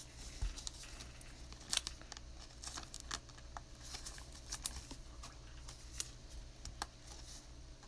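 Trading cards being handled and flipped: faint scattered clicks and rustles of card stock, over a low steady hum.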